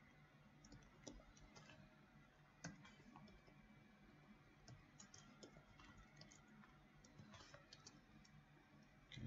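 Faint, irregular computer keyboard keystrokes and clicks over quiet room tone, with one louder thump near the end.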